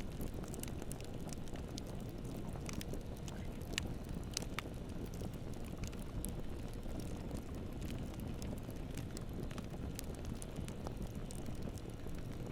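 Bonfire burning: a steady low rumble of flames with scattered sharp crackles and pops of burning wood.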